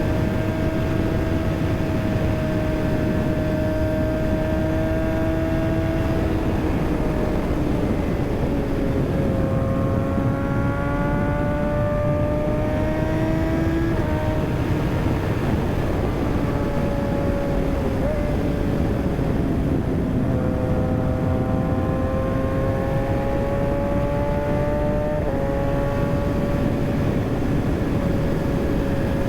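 Kawasaki ZX6R inline-four sport-bike engine running under way, its pitch climbing slowly and then dropping sharply twice, about halfway through and near the end, as the rider shifts up. A dense low rush of wind and road noise runs underneath.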